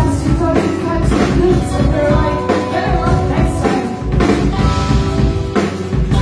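Rock band playing an instrumental passage: drum kit hits at a steady beat under held guitar and bass notes.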